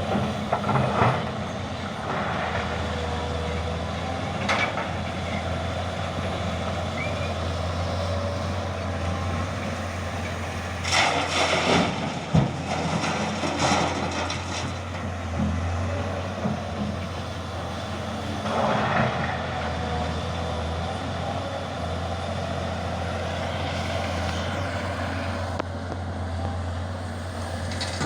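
Heavy diesel construction machinery running steadily with a deep engine hum. Several louder hissing, clattering bursts come about a third of the way in, again shortly after, and once more about two-thirds of the way through.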